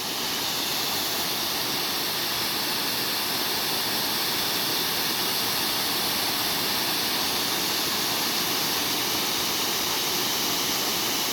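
Small waterfall rushing steadily: a constant, even hiss of falling water.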